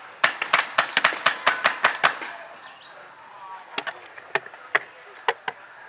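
Paintball marker fire: a fast string of about ten sharp pops in the first two seconds, then half a dozen more, spaced out, from about four seconds in.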